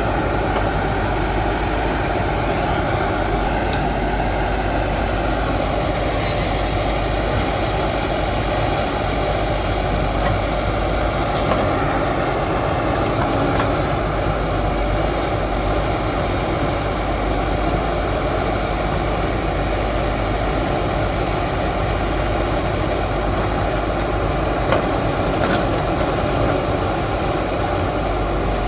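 Escorts backhoe loader's diesel engine running steadily while it works, with a single short knock near the end.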